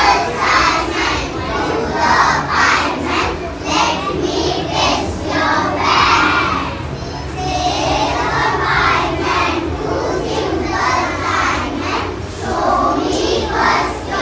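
A classroom of young children's voices all at once, shouting and calling out together in a steady hubbub.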